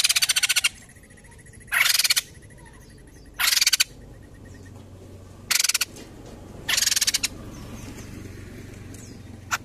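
White-crested laughingthrush giving loud, harsh rattling calls in short bursts, six in all, the last one brief near the end.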